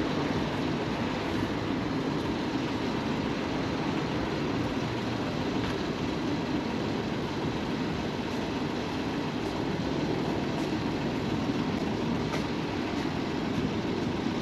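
Steady low rumble of street noise, even throughout with no distinct events.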